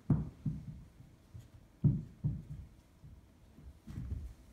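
A few soft low thumps on a carpeted floor as a puppy chases and pounces on a tossed toy ball. They come in two pairs about half a second apart, then a short cluster near the end.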